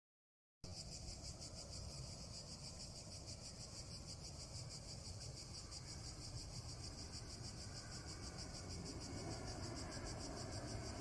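Cicadas buzzing in a steady, fast-pulsing high drone, starting abruptly about half a second in. Under it a low rumble, and near the end the rushing noise of a low-flying jet airliner's engines growing louder.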